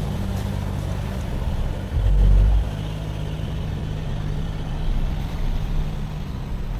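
4WD engine running steadily at low revs while driving off-road, with a louder low rumble lasting about half a second, about two seconds in.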